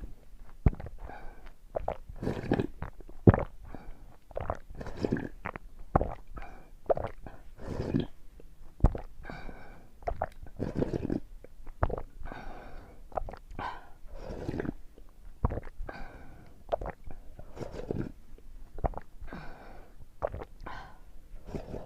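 A person drinking hu la tang straight down from the bowl: repeated gulps and swallows about once a second, with wet mouth clicks and slurps between them.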